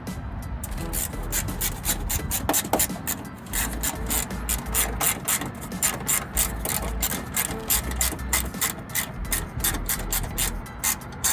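Hand socket ratchet loosening a bolt below the headlight, its pawl clicking rapidly in runs as the handle is swung back and forth.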